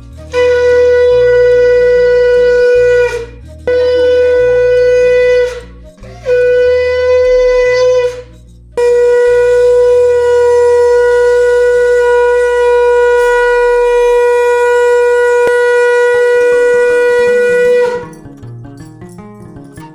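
Conch shell (shankha) blown in four loud, steady, single-pitched blasts: three short ones of two to three seconds each, then one long blast of about nine seconds. It is sounded as the ritual call at a Lakshmi puja.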